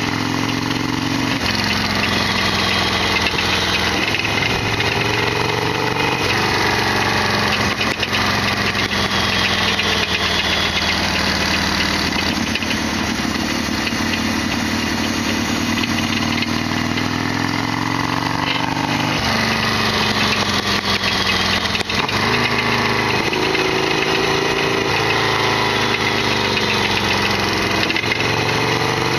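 Harley-Davidson Sportster XL1200R's air-cooled 1200 cc V-twin engine running on the move, its pitch rising and falling several times as engine speed changes.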